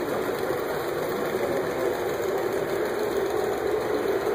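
Model trains running on a large layout: a steady hum and rumble of the electric motors and wheels on the track, with no breaks.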